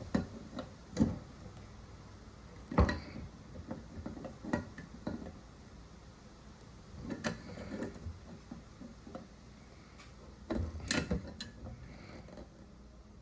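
Scattered metallic clicks and knocks of tools on metal plumbing fittings as the threaded connection of a new frost-proof hose bib is tightened. The sharpest knock comes about three seconds in, with another cluster near the end.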